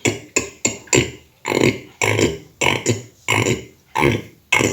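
A beatboxer repeating an inside hi-hat sound pulled back into the throat, which gives it a bassy tone. It comes about ten times, roughly one every half second.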